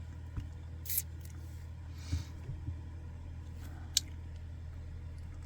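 Porcelain teaware being handled during a gongfu tea tasting: a few short, sharp clicks and light clinks, the sharpest about a second in and again near the end, with a brief soft hiss around the middle. A steady low hum runs underneath.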